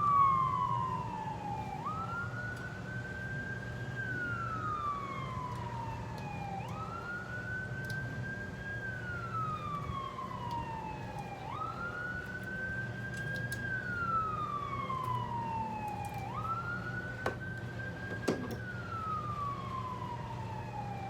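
Emergency vehicle siren on a slow wail: each cycle rises quickly, holds, then glides slowly down, repeating about every five seconds, over a low steady hum. Two sharp clicks about a second apart come near the end.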